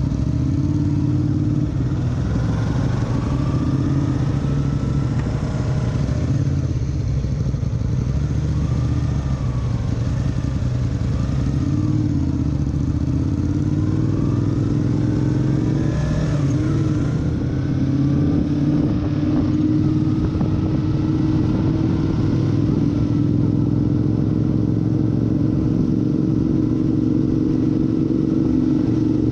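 Yamaha motorcycle engine running at low speed in town traffic, throttle opening and closing as it pulls away from a crawl and picks up speed, heard from the rider's seat with some wind noise.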